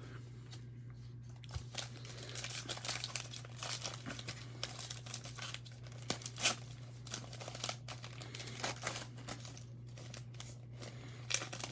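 A trading card pack's wrapper being torn open and crinkled as the cards are pulled out and handled, in irregular crackling strokes that are loudest about halfway through. A steady low hum runs underneath.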